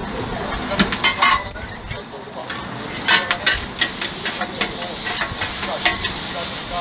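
Sauced meat sizzling on a hot flat-top griddle while two metal scrapers chop and scrape it against the plate, with sharp metal clacks about a second in, around three seconds, and repeatedly through the second half.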